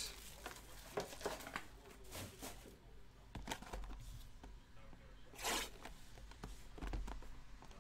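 Faint handling of a 2016 Topps Finest baseball card box and its plastic-wrapped mini box being opened: scattered crinkles and taps, with a longer rustle about five and a half seconds in.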